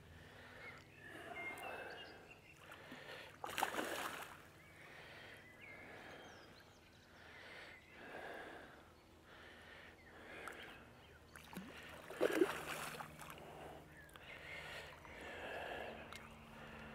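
Faint water at the river's edge: gentle splashing and lapping that comes in soft swells, with two sharp knocks, one about four seconds in and one about twelve seconds in.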